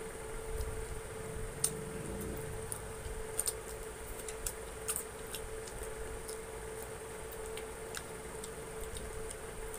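Close-up eating sounds: scattered sharp clicks and smacks of chewing and tearing fried chicken by hand. A steady hum runs underneath.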